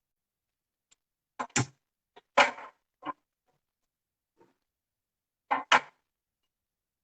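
A few short, sharp knocks and clatters, two of them in quick pairs, the loudest about two and a half seconds in.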